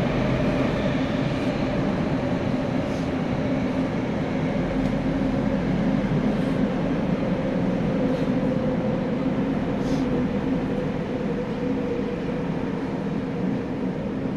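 Tokyo Metro 9000 series subway car running at speed, heard from inside the car: a steady rumble with a faint motor hum that sinks slightly in pitch through the second half, and a few light clicks.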